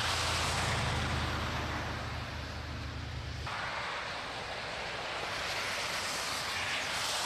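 Cars driving past on a wet, slushy road, their tyres making a steady hiss. A low hum underneath cuts off suddenly about halfway through.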